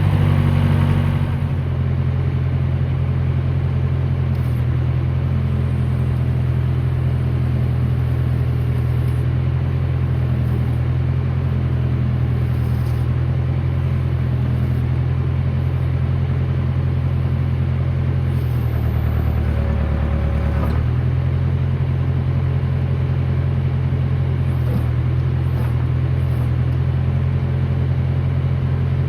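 John Deere 450 crawler loader's engine running steadily while it powers the hydraulics for a test of the backhoe's functions. The engine note eases slightly a second or so in and shifts for about two seconds around two-thirds of the way through.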